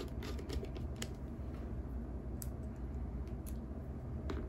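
Faint, scattered clicks and ticks of a small precision screwdriver turning the screws of a clear plastic screw-down card holder, over a low steady hum.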